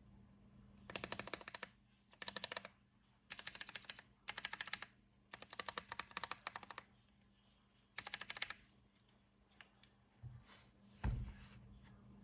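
Typing on a MechWild Orange Boy Ergo mechanical keyboard with Gateron Brown tactile switches and PBT MA-profile keycaps. It comes as six short bursts of rapid key clacks, then a few single keystrokes and a low thump near the end.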